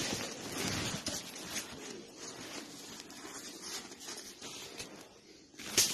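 Footsteps crunching and shuffling in snow with winter clothing rustling, quieter after the first couple of seconds; one short, sharp click just before the end.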